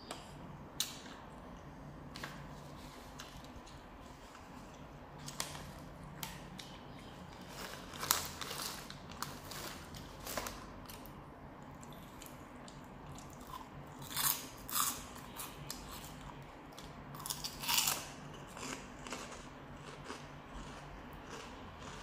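Close-miked eating sounds: a person chewing mouthfuls of beef noodle soup, with scattered small clicks and several louder short wet bursts a third of the way in, just past halfway and about four-fifths through.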